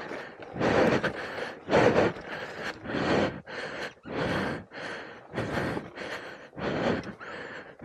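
A person panting hard, quick heavy breaths about two a second, out of breath after exertion.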